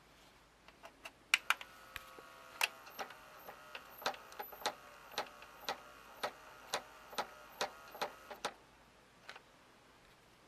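Magnavox VCR's tape-loading mechanism running with a faint motor whine and sharp regular clicks, about two a second, which stop with a last pair of clicks near the end. It is the sound of the load/eject mechanism jamming with the tape half loaded.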